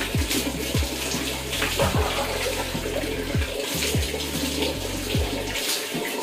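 Water poured from a plastic dipper splashing over hair and body in repeated surges, with background music carrying a regular low beat about twice a second.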